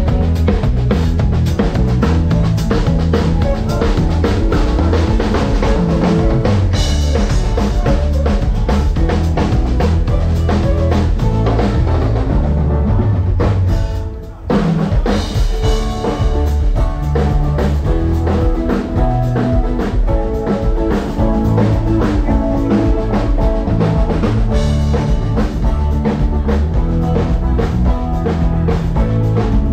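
Band music driven by a drum kit, with pitched instruments over a steady beat; it cuts out for a moment about halfway through, then picks up again.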